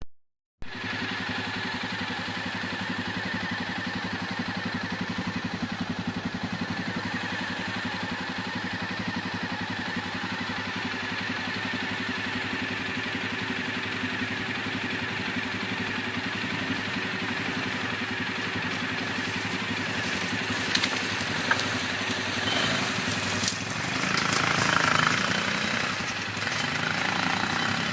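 ATV engine running at a steady pace, with a few sharp clicks or knocks over the last third and a louder rough surge a few seconds before the end.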